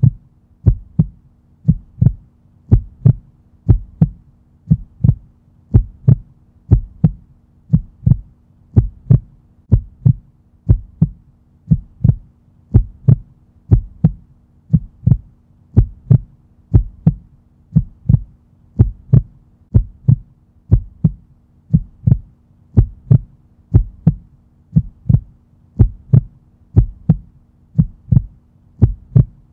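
Heartbeat sound effect: a slow, steady series of deep, evenly spaced thumps over a faint low hum.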